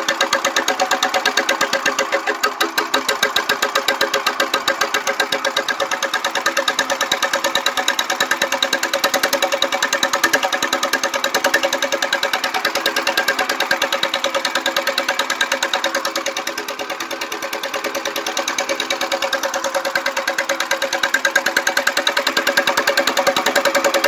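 1959 Gravely Model L's single-cylinder engine running steadily while pulling gang reel mowers, with a rapid exhaust beat. It eases off slightly about two-thirds of the way through, then picks up again.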